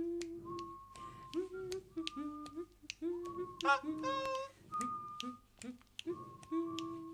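Music: finger snaps keeping a steady beat, about two a second, under a melody of held notes that slide up into pitch.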